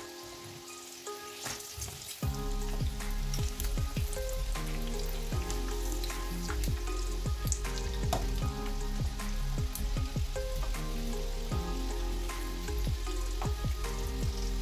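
Battered potato pieces sizzling in hot vegetable oil in a frying pan, a steady hiss with frequent small crackles and pops as a spatula turns them. Background music plays underneath, growing louder about two seconds in.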